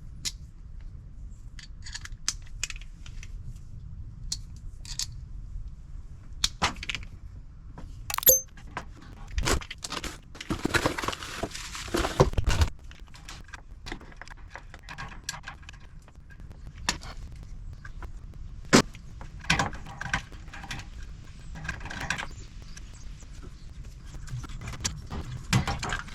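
Scattered metallic clicks, knocks and rattles of hands working with tools and parts at a gas furnace, with a louder scraping rustle about eleven seconds in, over a low steady hum.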